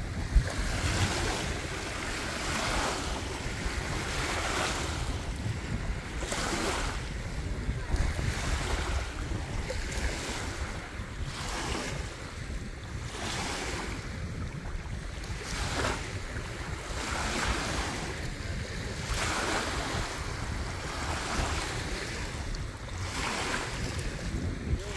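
Small waves lapping and washing over a pebble shore, each wash swelling and fading about every two seconds, with a steady low rumble of wind on the microphone.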